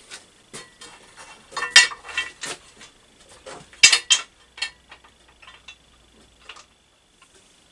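Irregular metallic clinks and knocks, the two loudest about two and four seconds in, as a steel tube and the parts of a manual pipe bender are handled and set in place.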